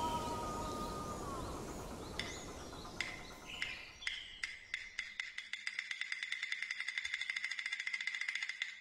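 Percussion music: wood-block clicks, sparse at first about two seconds in, speeding up into a fast even roll with a bright ringing pitch that fades at the end. Before that, a high whistling tone and faint outdoor background die away.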